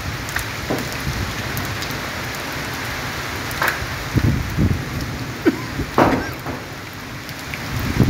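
Storm rain and wind making a steady hiss, with several short louder bursts in the second half.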